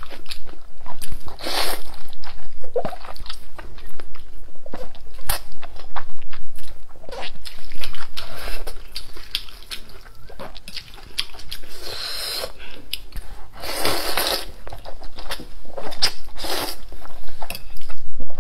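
Close-miked eating of wide chili-oil noodles: loud slurps every few seconds, between wet chewing and sharp mouth clicks.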